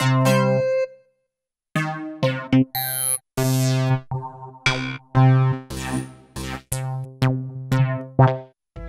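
Roland XPS-30 synthesizer keyboard: a held chord fades out within the first second, and after a brief pause comes a run of short, separately played notes and chords, each with a different tone, some bright and ringing.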